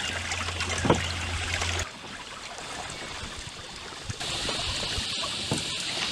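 Water trickling and splashing around a kayak as it is paddled, with a few short knocks of the paddle. The background changes abruptly about two seconds in and again about four seconds in, where a steady high hiss comes in.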